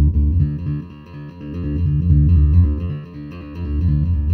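Tune SWV-6 six-string electric bass playing a steady, repeating line of low notes, about four a second, with the loudness swelling and easing back twice.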